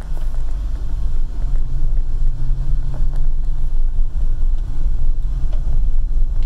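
Van driving, heard from inside the cabin: a steady low rumble of engine and road noise.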